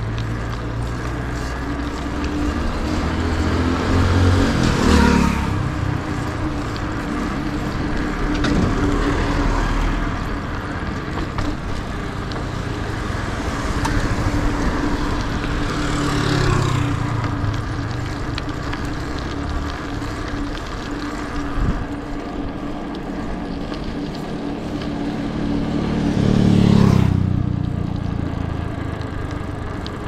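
Road traffic: motor vehicles passing one after another over a steady engine hum. Three louder passes come a few seconds in, at about halfway and near the end, each rising and falling as it goes by.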